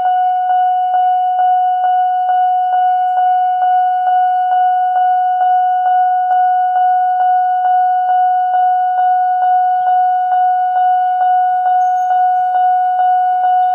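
Railway level-crossing warning bell ringing: one steady ringing tone struck evenly about three times a second, without a break.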